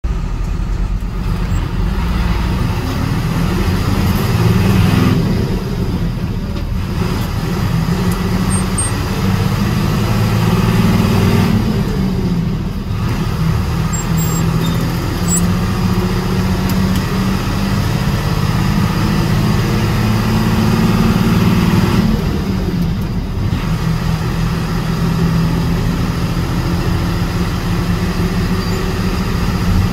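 Bus driving at speed: a steady low road rumble, with the engine note rising and falling several times.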